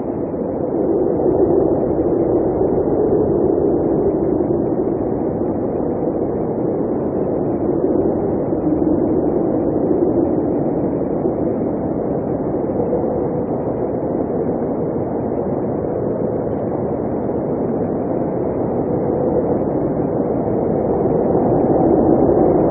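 Blizzard wind blowing steadily: a low rushing noise that swells and eases slowly over several seconds.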